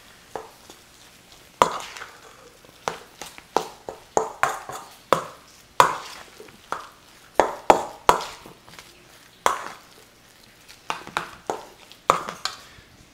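A metal utensil scraping and clinking against a stainless steel mixing bowl while thick crab cake mixture is stirred: irregular sharp clicks, one or two a second, some in quick clusters.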